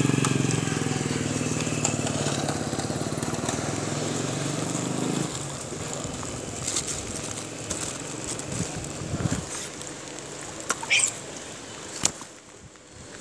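A motorcycle engine runs steadily and cuts off about five seconds in. It is followed by scattered small clicks and a brief high squeak.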